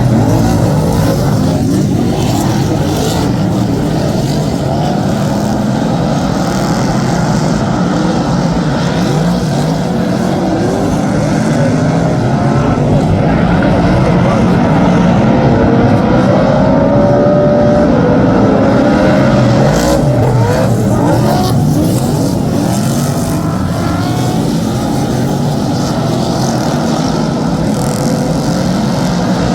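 Several superstock speedway cars' V8 engines running laps together, their pitch rising and falling as they rev and pass.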